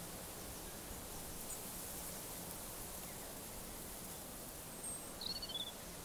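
Steady outdoor ambience, a soft even hiss, with a bird giving a few short, high chirps, the clearest about five seconds in.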